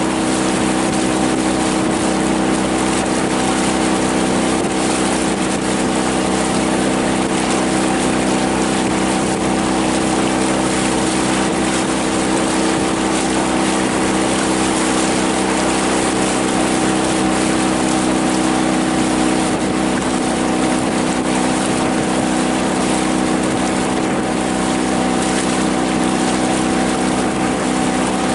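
Outboard motor running steadily at cruising speed, its even drone over a constant rush of wind and water.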